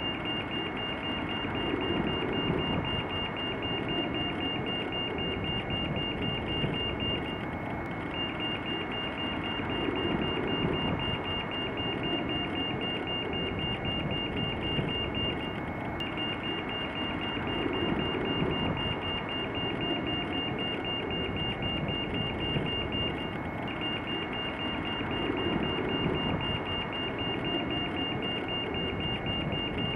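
Pedestrian crossing signal beeping rapidly at a high, steady pitch, in long runs broken by a short pause about every eight seconds, over the noise of passing road traffic.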